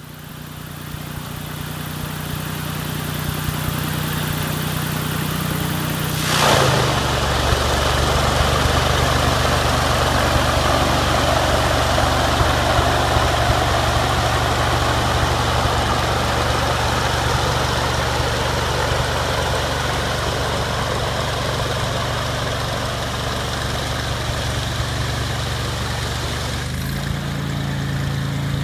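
Floatplane engine running with its MT composite propeller. About six seconds in there is a quick falling whoosh, and the running turns deeper and heavier as the propeller goes into reverse pitch. Near the end the tone shifts back up as reverse is released and forward thrust resumes.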